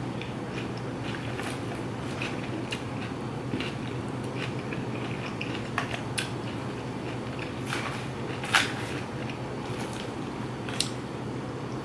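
Close-miked eating: chewing and crunching of food, with many small crisp clicks and a sharper crunch about eight and a half seconds in, over a steady low hum.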